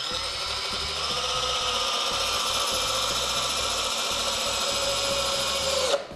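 Cordless drill driving a GRK R4 self-countersinking screw into melamine without pre-drilling: the motor whine runs steadily under load, then drops in pitch and stops near the end as the screw head seats.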